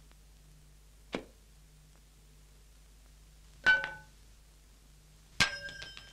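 Cartoon sound effects: a short knock about a second in, then two metallic clangs that ring briefly, the second one the loudest and longest-ringing.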